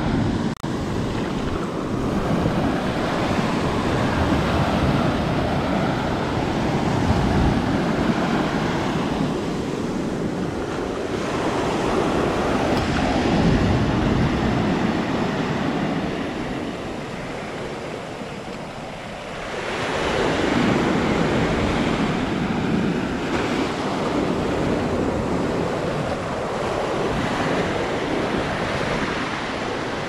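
Ocean surf breaking and washing up a sandy beach, a continuous rush that ebbs about two-thirds of the way through and builds again, with wind on the microphone.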